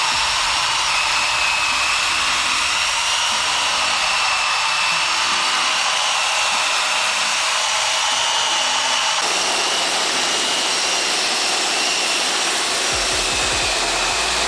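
An electric blower motor running steadily: rushing air with a high whine, used in cleaning the floor mats. More low sound joins in about nine seconds in.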